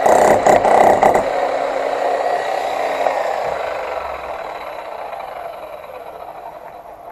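Bosch GSH demolition hammer chiselling concrete with a fast rattling hammering for about the first second, its freshly sharpened, heat-treated chisel point biting into the wall. The sound then dies away slowly over the following seconds.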